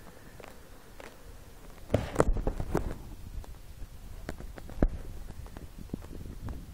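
Phone microphone handling noise: scattered knocks and thumps over a low rumble, the loudest a cluster about two seconds in and a single thump near five seconds.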